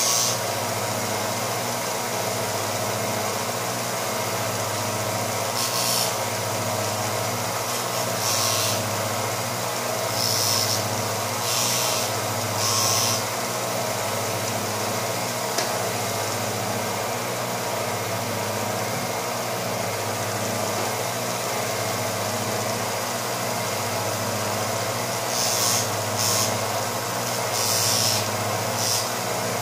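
Small bench belt sander's motor running with a steady hum, with a short grinding hiss each time a twist drill bit's tip is pressed to the abrasive to sharpen it. Several such touches come in clusters, around a third of the way through and again near the end.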